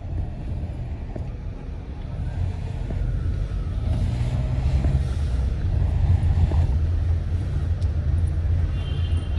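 Steady low rumble of engine and road noise heard from inside a car cabin while the car drives slowly along a city street.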